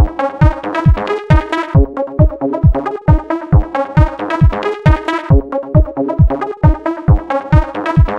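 Background electronic dance music with a steady beat, a little over two beats a second.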